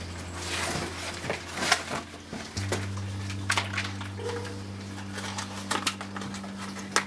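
Scattered clicks and short rustles of an object being handled, over a low steady hum that shifts to a slightly different pitch about two and a half seconds in.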